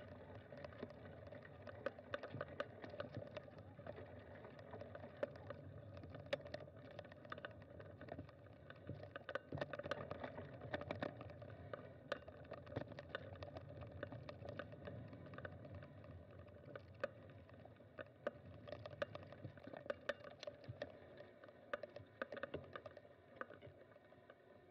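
Bicycle rolling over a rough dirt trail: a steady rush of tyre noise with frequent sharp, irregular clicks and rattles from the bike, easing off a little near the end as it slows.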